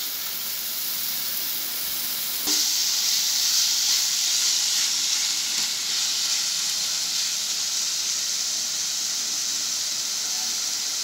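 Marinated boneless chicken pieces sizzling in plenty of hot oil as they are stir-fried, no water added. The steady sizzle jumps louder about two and a half seconds in and stays there.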